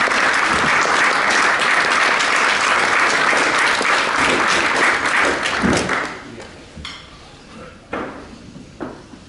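Audience applauding, a dense steady clapping that dies away about six seconds in. After it, only a few faint knocks and rustles.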